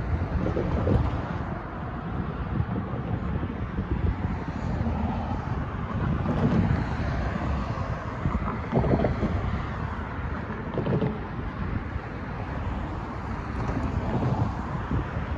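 Wind buffeting the microphone in gusts, over road traffic: a pickup truck and several cars driving past, a few passes swelling louder.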